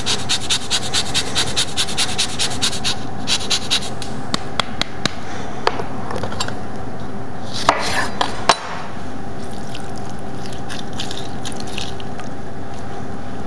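Lemon zested on a fine rasp grater: quick, even scraping strokes, about six a second, for the first three or four seconds, then a few scattered clicks. Around eight seconds in, a knife cuts through the lemon on a cutting board with two sharp strokes, followed by a steady faint hum.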